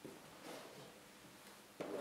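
Faint footsteps and rustling as a person steps up to a row of upholstered chairs and leans on their backs, with a soft knock near the end.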